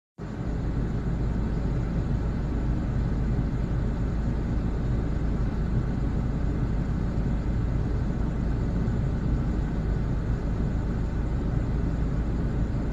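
Steady low rumble of street traffic and idling vehicles at an intersection, even in level, with no distinct bang or horn.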